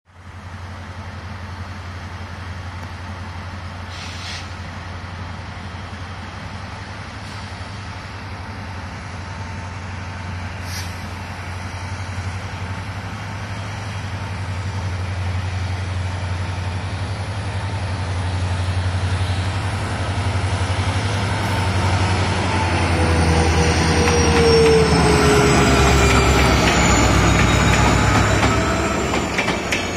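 WDP4D diesel locomotive's EMD two-stroke engine running with a deep steady drone that grows louder as the train draws near, its pitch falling as it passes close near the end.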